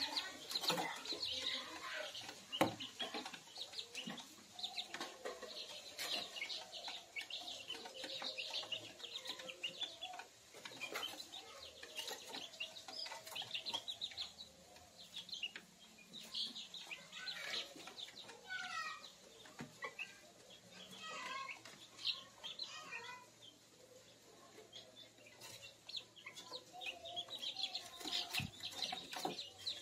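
Month-old kampung chicks (Indonesian native chickens) peeping and clucking, with many short, scattered calls, some gliding in pitch, and a few brief knocks.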